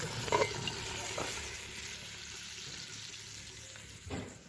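Chicken and potatoes sizzling in a covered iron sac pan over a fire, a steady hiss that fades gradually. A short knock comes just after the start as the metal dome lid is set on, and a dull thump near the end.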